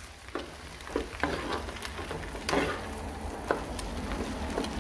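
Spatula scraping and knocking against a frying pan as scrambled egg, onion and peanuts are stirred, over a steady sizzle of frying. The scrapes come irregularly, several to a second at most.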